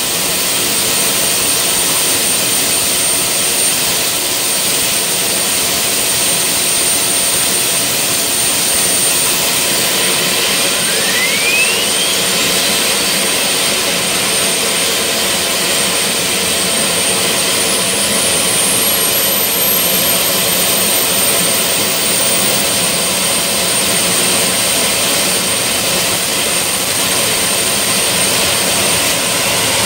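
Gas turbine running steadily with a loud, even rush and a constant high whine. A rising whine sweeps up about 11 seconds in, and another climbs from about 17 seconds.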